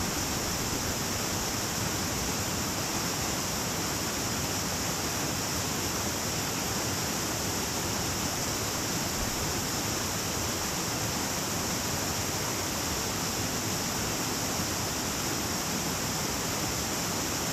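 Small stream rushing steadily over rocks, a constant even rush of water.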